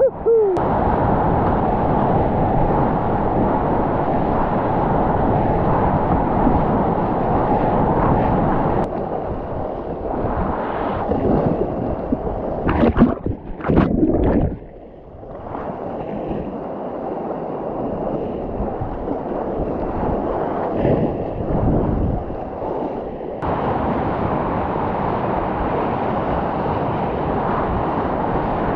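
Whitewater rapids rushing and splashing steadily around a kayak at close range. About halfway through comes a few seconds of choppy, broken splashing as the boat and camera dip into the water, and the level shifts abruptly twice.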